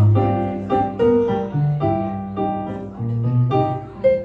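Digital stage keyboard playing a piano sound solo: chords struck about every half second over a changing bass line, with no vocals.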